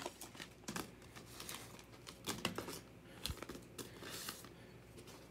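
Topps Heritage baseball cards being handled and flipped through by hand: faint, irregular clicks and soft slides of card against card, thinning out near the end.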